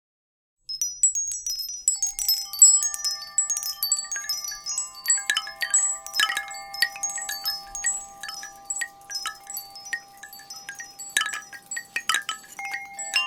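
Microsoft Lumia 640 XL ringtone in a wind-chime style: many quick high tinkling pings over a few long held tones, starting a little under a second in.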